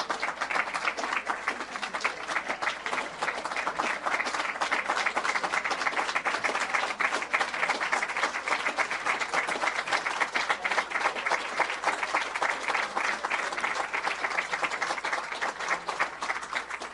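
Audience applauding: many hands clapping densely and without a break, thinning a little near the end.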